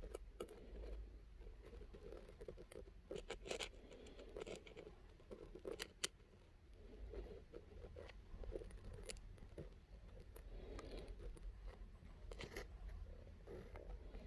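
Faint handling noise close to the microphone: scratching and rubbing with scattered small clicks, as the phone moves against skin.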